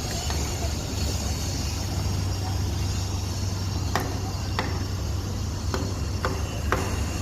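A steady low mechanical hum under a noisy haze, with a few sharp clicks or knocks in the second half.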